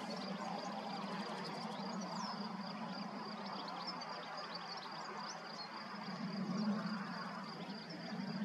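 Outdoor wildlife ambience: a steady high insect trill, with scattered short high bird chirps and a low steady hum underneath.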